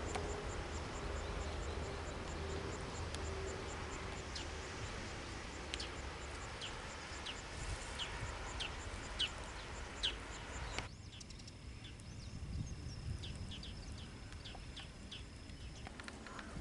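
Outdoor countryside ambience: short, sharp bird chirps repeated every second or so, over a steady high insect trill. About eleven seconds in the background hiss drops away suddenly, and the chirps and a thin high insect tone carry on.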